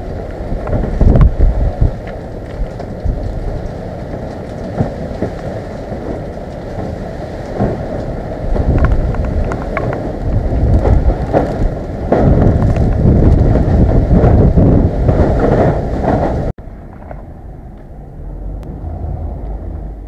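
Typhoon-force wind gusting and howling through trees, buffeting the microphone, with scattered sharp knocks and rattles; the surges grow louder and more sustained in the second half. Near the end it cuts off suddenly to a much quieter, steadier wind.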